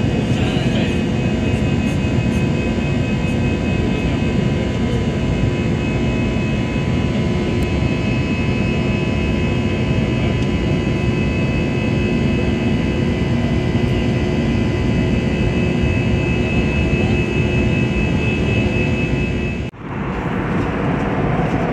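Jet airliner engines heard from inside the passenger cabin during the climb after takeoff: a steady, even roar with a few constant whining tones over it. Near the end it cuts out sharply for a moment and comes back duller.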